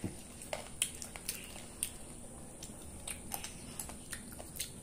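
Close-miked mouth sounds of grilled chicken being chewed, with irregular wet smacks and clicks as the meat is torn apart by hand and eaten.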